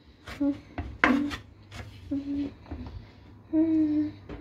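Kitchen knife cutting raw turnips on a cutting board: several sharp knocks of the blade on the board in the first two seconds, with short low pitched hums between them, the longest near the end.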